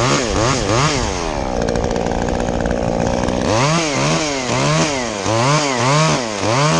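Stihl two-stroke chainsaw revved up and down in quick, repeated blips, about two or three a second, with a steadier stretch at an even speed in the middle.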